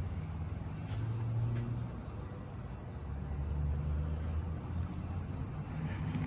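Insects trilling in a steady, high, softly pulsing tone over a low rumble.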